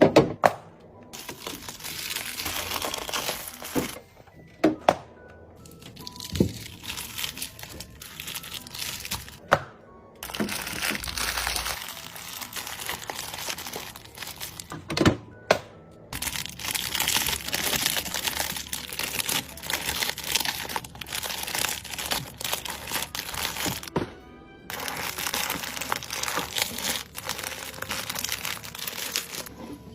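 Plastic biscuit wrappers crinkling as packages are handled, in long stretches, with sharp knocks now and then as items are set down.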